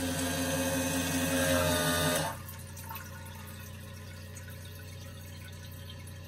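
Microphor LF-220 toilet running its flush cycle: the motor hums under rushing water, then cuts off abruptly a little over two seconds in. A quieter steady hiss of water follows.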